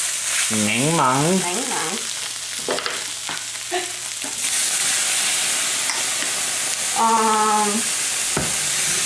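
Chicken frying in hot oil in a pan, a steady sizzle that gets louder about four and a half seconds in. A brief voice sounds near the start, and a held voiced note comes about seven seconds in.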